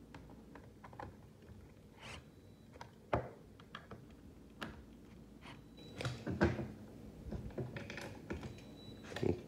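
Intermittent clicks and taps of a plastic multimeter case being handled and knocked on a stone countertop, with short runs of a DeWalt cordless screwdriver working as it snugs down the case screws. The clicking is scattered and irregular, busiest about six seconds in and again near the end.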